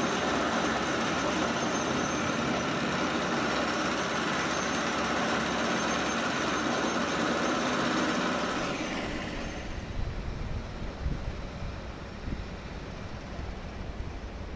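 Heavy construction machinery on a sheet-pile-driving work barge running steadily with a dense mechanical din. It fades out about nine seconds in, leaving a low rumble.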